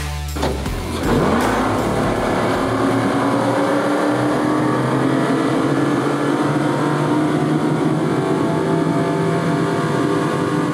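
Twin Yamaha XTO 425 V8 four-stroke outboards accelerating hard: the engine note climbs quickly over the first couple of seconds, then holds high and steady at speed.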